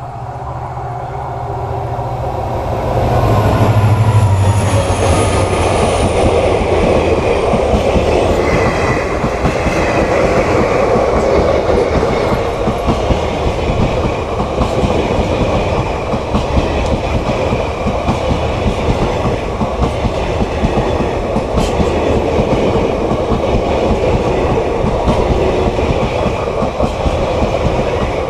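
A passenger train passing close by on the adjacent track: its locomotive's low engine drone swells and goes by about four seconds in, with a thin high whine that falls in pitch and fades, followed by the steady rumble and clickety-clack of its coaches rolling past.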